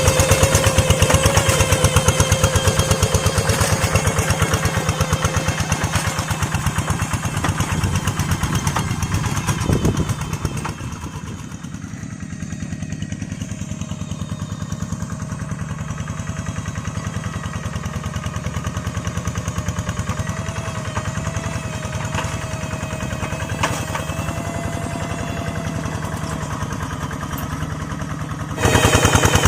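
Hand tractor engine running in a rice paddy, its exhaust firing in fast, even pops. It grows quieter about a third of the way in and louder again just before the end.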